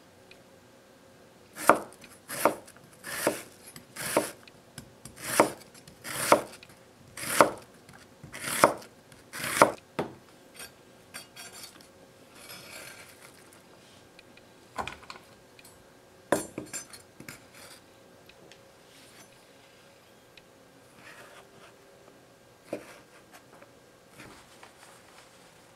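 Chef's knife slicing an onion on a wooden cutting board: about ten crisp cuts, roughly one a second, then a few scattered knocks of the knife on the board.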